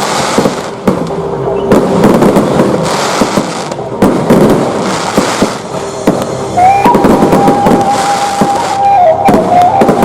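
Fireworks going off in quick succession, a dense run of cracks and bangs. About two-thirds of the way in, a held high tone joins them and steps in pitch.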